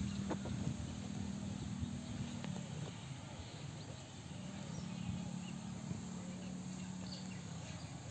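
Rural outdoor ambience with faint insect and bird chirps, over a low steady hum that comes and goes in two stretches.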